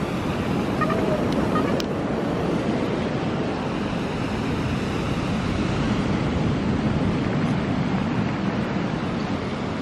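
Surf washing up a pebble beach in a steady rush: surge waves raised by glacier ice falling into the bay.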